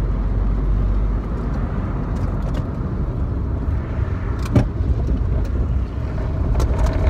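Car driving, heard from inside the cabin: steady low road and engine rumble, with one sharp knock about four and a half seconds in.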